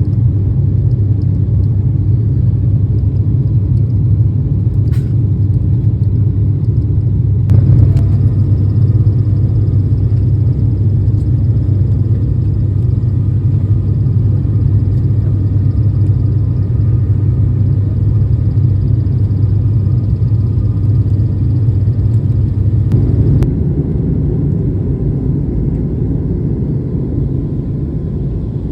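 Steady, loud low rumble of an airliner's engines heard inside the passenger cabin, with a few faint clicks. About 23 seconds in the deep hum drops away and the noise slowly eases off.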